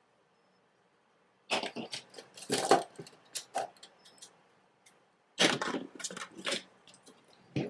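Small hard makeup items clattering and knocking against a hard surface in two short flurries, with one more knock near the end: things dropped from the hand and handled.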